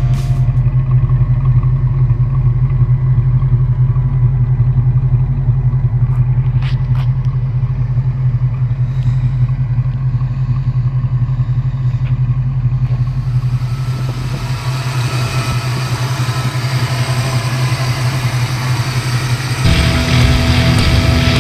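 1992 Ford Mustang LX 5.0's stock V8 idling steadily with a low, even exhaust note.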